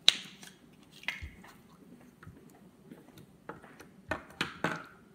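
Hands handling a slime toy and its plastic container: a sharp crinkling snap just after the start, another about a second in, and three quick squishy crackles near the end.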